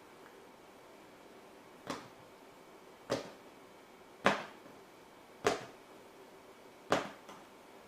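Five sharp taps or knocks, roughly a second apart, over a faint steady hum.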